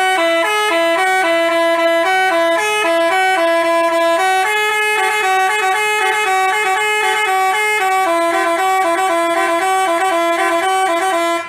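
Telolet basuri multi-tone horn playing a quick tune, its notes stepping up and down several times a second with two tones sounding together; it stops abruptly near the end.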